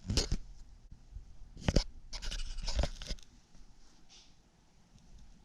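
Handling noise: a few rubs, scrapes and clicks over about three seconds, then it goes quiet.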